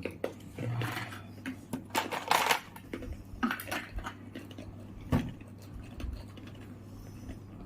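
Scattered light clicks, clinks and rustles of small things being handled, with a denser rustle about two seconds in and a sharp click near five seconds, over a steady low hum.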